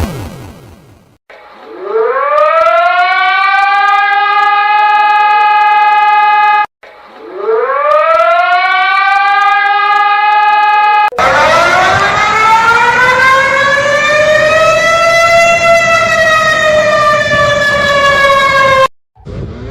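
Civil defense sirens. A siren winds up in pitch over a couple of seconds and holds a steady wail, cuts off, then winds up and holds again. A different siren follows with a slow rising and falling wail over background noise, which cuts off near the end.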